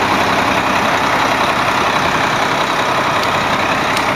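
Ready-mix concrete mixer truck running steadily, its engine driving the turning drum as the concrete mixes.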